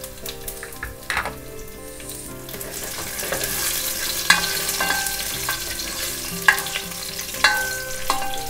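Tempering of mustard, cumin, dry red chillies and garlic sizzling in hot oil in a nonstick pot, growing louder about three seconds in. A spatula stirs it, knocking against the pot several times in the second half with short ringing clicks.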